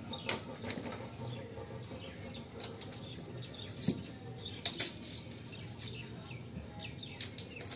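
Birds chirping in the background, with several sharp taps or clicks, the loudest a little before the middle, around the middle and near the end.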